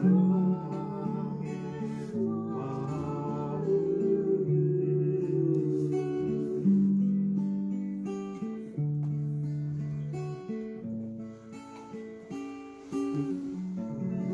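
Background music: a song with a wavering sung melody over held chords for roughly the first six seconds, the instrumental accompaniment carrying on after.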